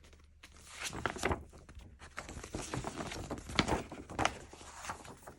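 Paper album poster being handled, rustling with irregular sharp crackles; the loudest crackle comes about two-thirds of the way through.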